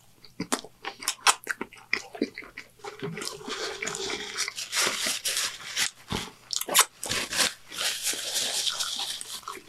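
Close-miked chewing of a mouthful of triple Whopper burger, with wet smacking and many small mouth clicks that grow denser in the second half.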